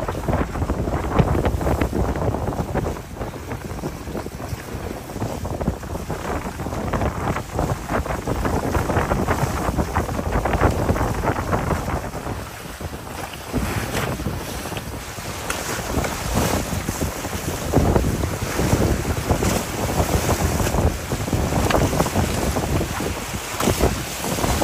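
Wind buffeting the microphone over the rush and splash of water along the hull of a Corsair F28 trimaran sailing at about 10 knots, the noise swelling and easing.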